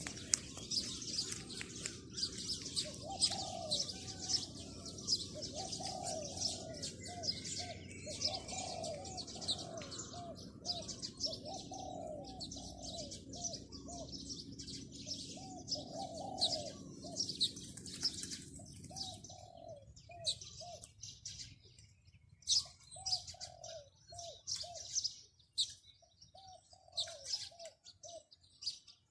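Zebra doves cooing: phrases of short arching coo notes, with small birds chirping high and busily behind them. A low background hum stops about two-thirds of the way through.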